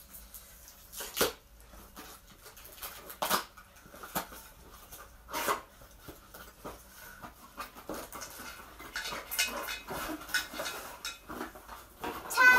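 Sparse knocks and rustles from handling a keyboard stand's leg and its round plastic fitting. Right at the end a loud, steady, high-pitched whine begins.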